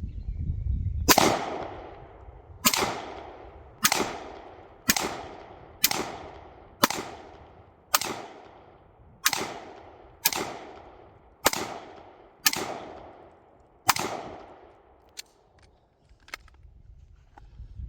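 A string of about a dozen gunshots fired at a steady pace of roughly one a second, each sharp crack followed by a fading echo, as a shooter fires at bottle-cap targets.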